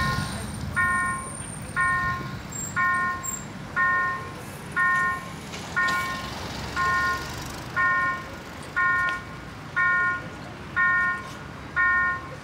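Autotrol electronic bell at a railroad level crossing sounding its warning that a train is coming: a bright ding about once a second, each ding a short chord of a few high tones. A low steady rumble runs underneath.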